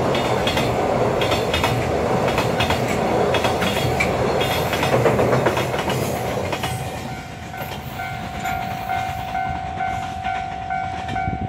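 Loaded Koki container flatcars of a freight train rolling past with a loud clickety-clack of wheels over rail joints, fading about two-thirds through as the last wagons pass. A steady pulsing warning tone then rings and cuts off suddenly near the end.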